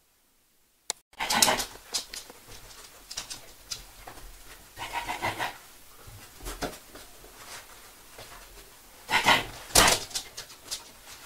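Bed bug detection dog panting in loud, irregular bursts close by while it searches. A single click about a second in, after a near-silent start.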